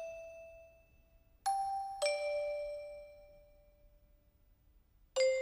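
Background music: slow, sparse bell-like mallet notes, each struck and left to ring away, two about a second and a half and two seconds in, then a quick run of notes near the end.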